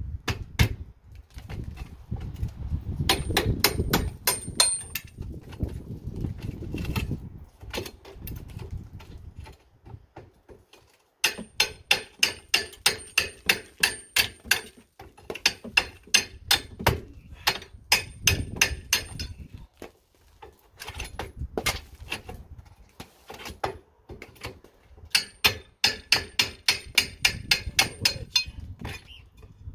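Rapid hammer blows with a metallic ring, about four a second, in three runs of several seconds with pauses between: chipping stucco away from around a window frame to free it.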